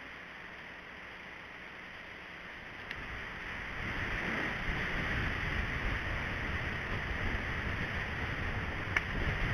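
Wind on an outdoor camera microphone: a steady hiss that swells about four seconds in into a gusty, fluctuating rumble, with a short sharp tick near the end.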